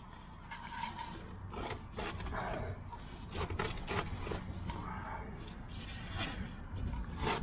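A 12 mm open-end spanner clicking and scraping against a brake caliper bolt as the bolt is worked loose, in a string of irregular sharp clicks.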